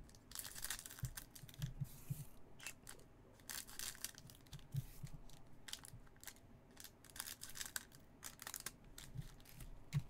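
Scissors snipping open foil trading-card pack wrappers and the wrappers crinkling as the cards are slid out, in a string of short, irregular rustles.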